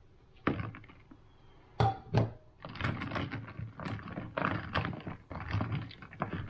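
Blanched broccoli going into a bowl of ice water: ice cubes knocking and water splashing. There are a few sharp knocks in the first two seconds, then a busy run of small clinks and splashes as the stalks are pressed in among the ice.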